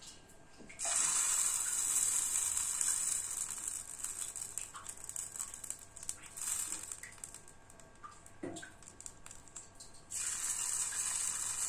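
Dosa batter sizzling on a hot tawa as spoonfuls are poured on. A sizzle starts suddenly about a second in and fades over several seconds, then a fresh one starts suddenly near the end.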